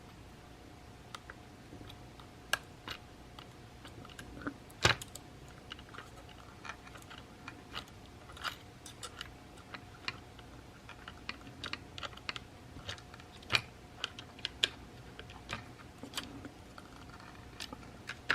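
Irregular small clicks and taps of hand tools working on the tiny plastic and metal parts of an iPhone 6 Plus screen assembly, a few of them sharper, over a faint steady hum.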